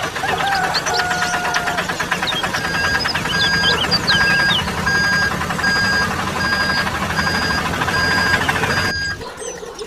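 Mini tractor's engine running steadily. From about three seconds in it gives a repeating electronic reversing-style beep, roughly one every 0.6 seconds. Both cut off suddenly near the end, and birds chirp over them.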